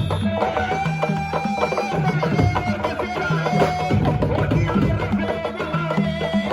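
Traditional music: steady drumming with a held, wavering melody over it.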